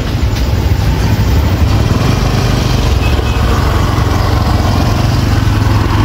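Motorbike engine running steadily at low speed, a close, continuous low drone.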